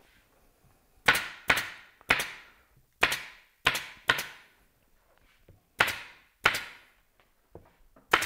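Staple gun firing nine staples one at a time, sharp snaps spaced unevenly between about half a second and a second and a half apart, driving staples through canvas into the wooden frame of a theatre flat.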